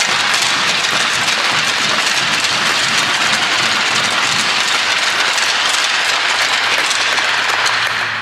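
Crowd applauding, a dense steady clapping that dies away near the end.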